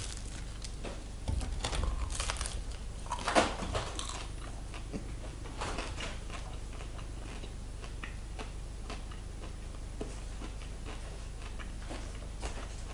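Crusty sourdough bread crackling as the crust is broken apart by hand, with the loudest cracks in the first few seconds. Then fainter crunching as the crust is chewed.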